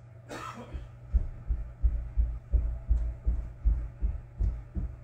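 A quick regular series of low, dull thumps, about three a second, over a steady low hum, after a brief rustle at the start.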